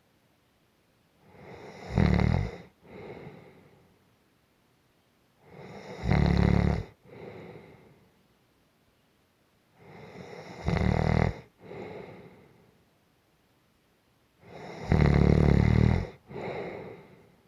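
Gentle snoring in a steady rhythm: four loud snores about four and a half seconds apart, each followed by a softer breath, with quiet pauses between.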